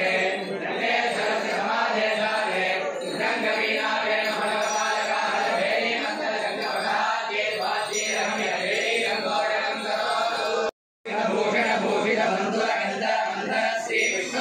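A group of voices chanting a devotional Ganapati song, steadily throughout, with a short break in the sound about three-quarters of the way through.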